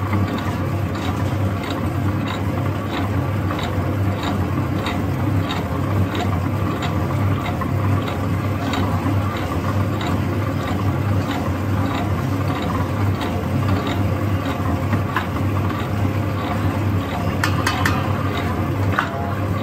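Stand mixer running, its dough hook kneading soft pandan bread dough in a steel bowl: a steady motor hum with a regular beat about two and a half times a second as the hook turns through the dough. A few sharp clicks near the end.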